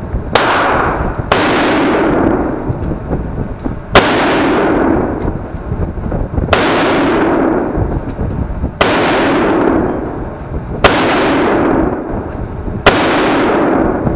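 Seven gunshots about two seconds apart, each a sharp crack followed by a long reverberating tail off the walls of an indoor shooting range.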